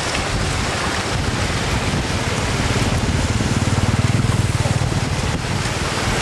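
Shallow floodwater rushing and splashing over a road. A low fluttering rumble swells between about three and five seconds in.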